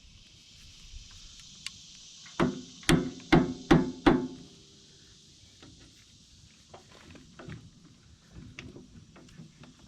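Hammer blows driving a steel shear pin into a John Deere 260B backhoe: five sharp ringing metal strikes about two and a half seconds in, roughly two a second, followed by a few faint taps.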